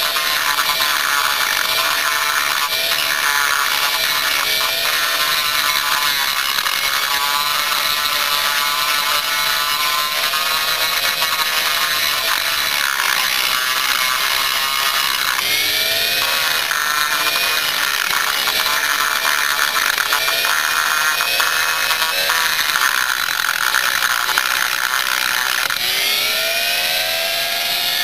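Dremel rotary tool with a small carbide cutter grinding the aluminum transfer port of a Yamaha Blaster two-stroke cylinder. Its high whine wavers in pitch throughout, dipping and climbing again, most clearly about halfway through and near the end.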